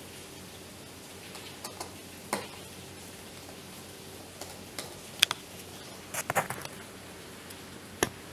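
Scattered small clicks and ticks of a screwdriver working out the screws that hold an electric kettle's connector (male holder) in its plastic base, with the plastic parts knocking as they are handled. The sharpest click comes about five seconds in, and a quick run of clicks follows about a second later.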